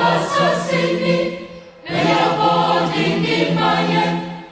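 Intro music: a choir singing over a steady low held note, the phrase fading out and a new one starting about two seconds in, and fading again near the end.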